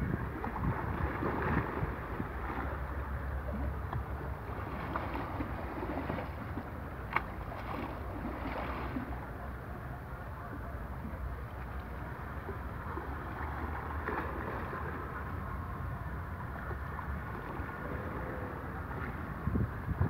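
Small sea waves lapping and splashing against shoreline rocks in irregular surges, with wind rumbling on the microphone.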